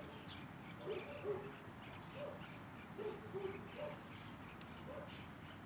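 Birds calling: short low hooting notes repeated about once a second, some in falling pairs, over a steady patter of higher chirps from other birds.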